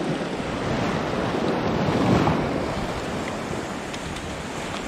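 Surf washing and foaming over coastal rocks, with wind buffeting the microphone; the wash swells to its loudest about two seconds in.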